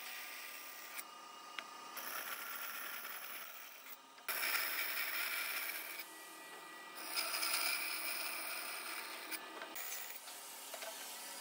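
Band saw running and resawing pine boards lengthwise into thin slats, a steady rasping cut. The sound jumps abruptly in level and tone several times.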